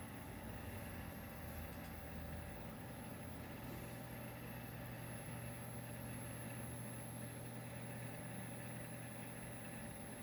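Desktop PC running with its two Western Digital Black hard drives spinning, picked up by a phone mic as a steady low hum with a faint high whine above it.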